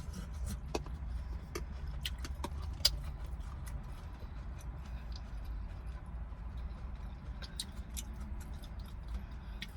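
Eating sounds: scattered small mouth clicks and ticks, one a little louder about three seconds in, over the steady low hum of a car interior.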